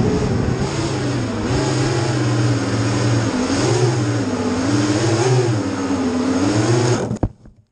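FPV racing quadcopter's brushless motors and propellers whining, heard from the camera on board, the pitch rising and falling in waves with the throttle. About seven seconds in there is a short knock as it comes down in the grass, and the motors cut out.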